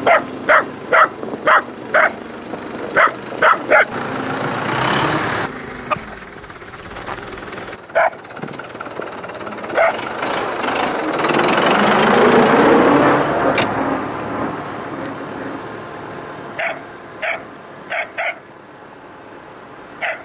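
A small dog barking in short, sharp yaps, a quick run of about eight at the start and another run near the end. In between, the UTB 650 tractor's diesel engine is heard running. It grows louder in the middle as the tractor moves past, then fades as it drives away.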